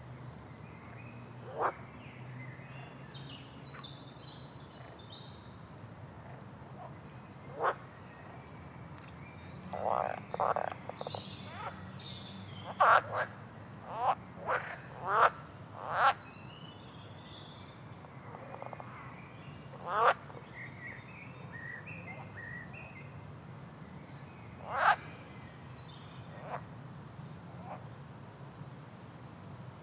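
Outdoor nature ambience of animals calling: high thin chirps sliding down in pitch recur every few seconds, and short sharp calls ring out singly and in a quick run of six or seven near the middle, over a faint steady background hum.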